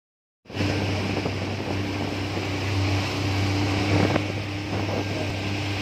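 Outboard motor of a speeding inflatable boat running steadily, with water rushing in the wake and wind buffeting the microphone. The sound starts about half a second in.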